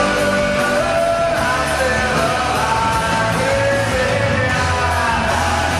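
Background rock music with singing, at a steady level.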